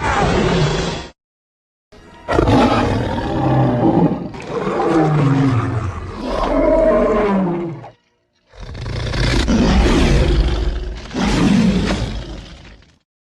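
Stock big-cat roar sound effects cut together: a short roar, then a long series of deep growling roars that fall in pitch, and another long roar after a cut to dead silence.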